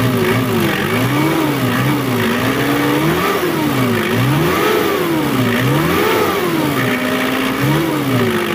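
Mitsubishi 4D56 turbo diesel engine revved from idle about six times, its pitch rising and falling with each blip. It exhausts through a resonator and tailpipe only. There is a slight popping in the exhaust note, but the engine is slow to answer the throttle, which the mechanic puts down to the injection pump not yet being set right.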